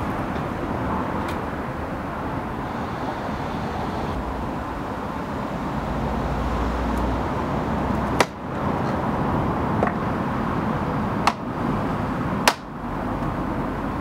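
Plastic fog-lamp surround trim on a BMW X5 E53 front bumper being pressed into place by hand, snapping into its clips with about four sharp clicks in the second half, over steady outdoor background noise.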